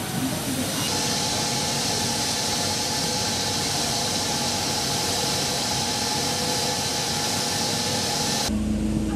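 A steady, even, high-pitched hiss with faint steady tones beneath it. It cuts off abruptly near the end, giving way to a lower steady hum.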